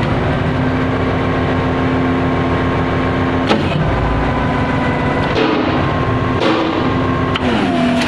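IHI IPF100B concrete pump running with its hydraulic system under power, a steady machine whine and engine drone. A sharp knock comes about three and a half seconds in and another near the end, where the whine slides down in pitch, as the main cylinders stroke during a test of the new seals for oil seepage.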